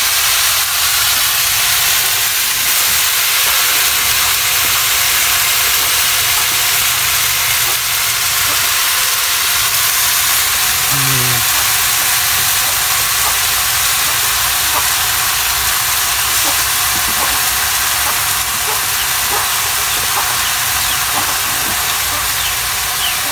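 Mushrooms sizzling as they sauté in a wide metal wok over a wood fire, a loud, steady hiss.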